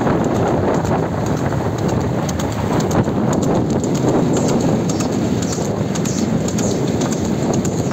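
Water buffalo bull's hooves clattering on the road as it runs pulling a two-wheeled racing cart, mixed with a motorcycle running alongside.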